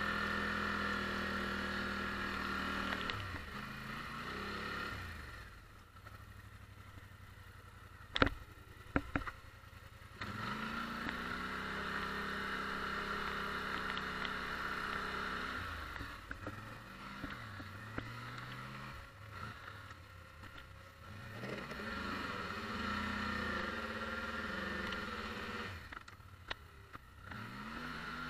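Polaris Sportsman 850 ATV's parallel-twin engine running while it pushes snow with a front plow, the revs rising and falling again and again and dropping low in a couple of quieter stretches. A few sharp clacks about eight to nine seconds in.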